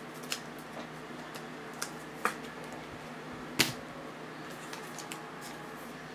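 Trading cards and packs being handled on a table: a few sharp clicks and taps, the loudest about three and a half seconds in, over a steady low hum.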